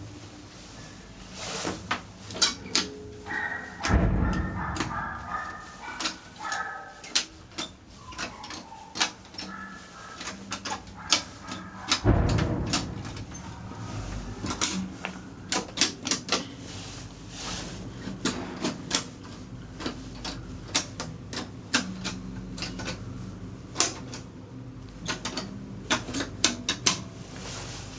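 Irregular sharp clicks and taps, with two dull thumps about four and twelve seconds in.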